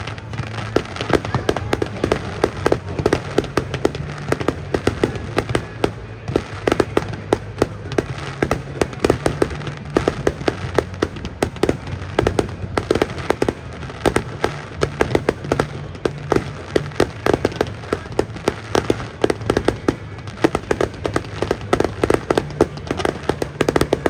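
Fireworks show: a dense, unbroken run of sharp bangs and pops, several a second.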